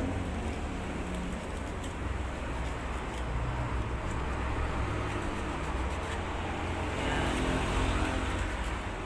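Sandpaper scuffing the rubber of a bicycle inner tube around a puncture, an uneven scratchy rubbing that roughens the surface so the patch glue will hold. A steady low rumble runs underneath.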